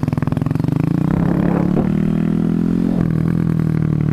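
Honda Grom's 125 cc single-cylinder four-stroke engine accelerating from a stop, its note climbing and breaking briefly twice, about two and three seconds in, as it shifts up.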